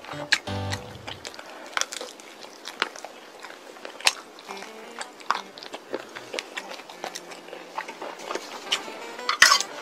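Close-up mouth sounds of biting and chewing Goobne chili-pepper crispy fried chicken: irregular crisp crunches and crackles of the fried coating, with a louder burst of crunching near the end.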